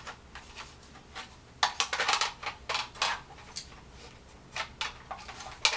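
Plastic filter screen being fitted onto an LED ring light: a string of light plastic clicks and rattles.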